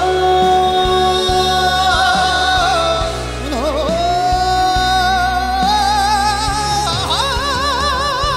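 Trot ballad sung live: voices holding long notes over the backing music, with a brief downward turn in the middle and a final long note sung with wide vibrato from about seven seconds in.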